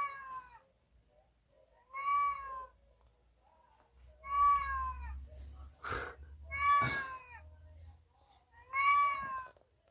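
Recorded cat meows played through a phone speaker: five near-identical falling meows about two seconds apart, repeating like a loop. A single sharp knock sounds about six seconds in.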